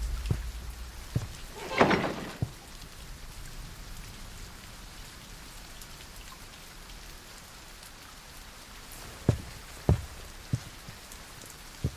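Steady rain falling, with a few short sharp knocks: a stronger one about two seconds in and several more near the end.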